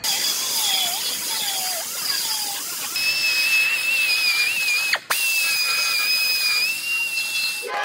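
Pneumatic belt file (narrow air belt sander) running against a steel truck frame rail, a steady high whine over the hiss of the air motor and the abrasive belt. It cuts out for a moment about five seconds in and starts again.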